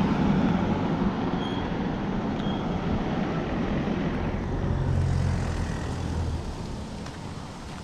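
Rumbling traffic noise of a car running in a car park, with a low engine hum about five seconds in, then fading away over the last two seconds.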